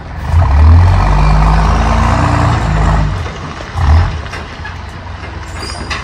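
Diesel engine of a logging truck pulling empty log trailers, heard from inside a car. It is a deep rumble, loud for the first three seconds, then easing off, with a short surge about four seconds in.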